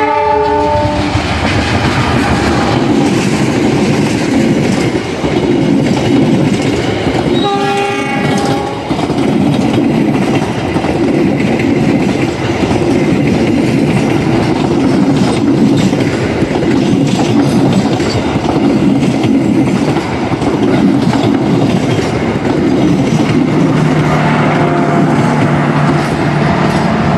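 CC206 diesel-electric locomotive sounding its horn twice, a short chord right at the start and another about seven seconds in, as it hauls a passenger train past. Then the steady rumble and clatter of the coaches' wheels on the rails, with a steady low drone joining near the end as the train's generator car passes.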